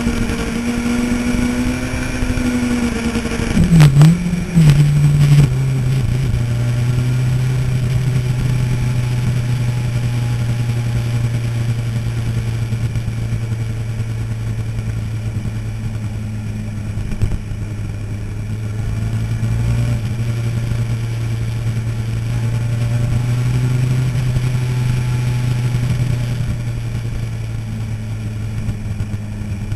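Motorcycle engine dropping in pitch as it slows. About four seconds in come a few loud knocks and quick swings in engine note, then the engine settles into a steady low note.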